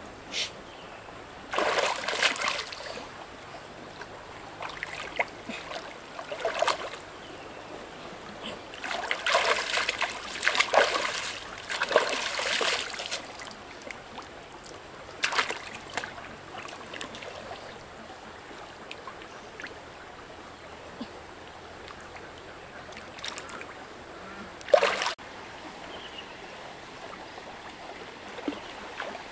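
Water splashing in irregular bursts over a steady low trickle: a spell of splashes a couple of seconds in, a longer busier spell midway, and a few single splashes later, the sharpest near the end.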